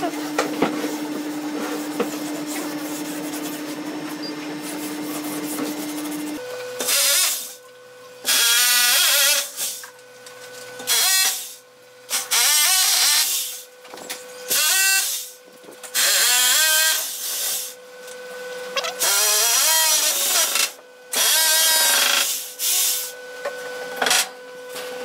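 Power drill run in repeated short bursts of one to two seconds with short pauses between, its pitch rising and falling with the trigger. Before the bursts, a steady machine hum holds for about the first six seconds.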